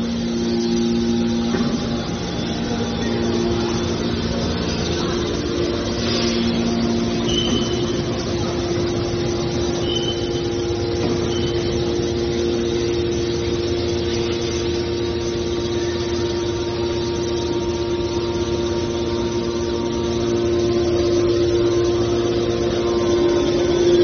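Hydraulic metal baler's power unit running: electric motors driving the hydraulic pumps with a steady hum and whine. A few brief high squeaks come in the middle.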